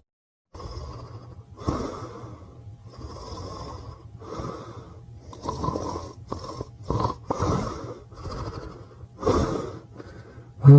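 Pyrenean Mastiff snoring in its sleep: a string of rasping, snorting breaths roughly one a second, some louder and sharper than others, the loudest about a third of the way in and near the end.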